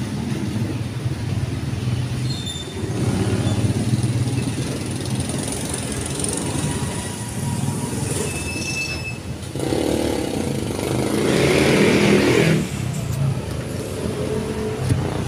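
Vehicle traffic noise: a steady low rumble, with a louder rushing swell from about ten to twelve and a half seconds in as a vehicle passes.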